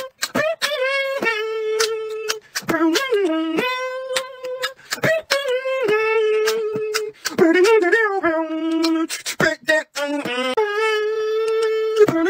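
Beatboxing: one voice holding sung notes of a second or two each, broken up by sharp clicks and pops of mouth percussion.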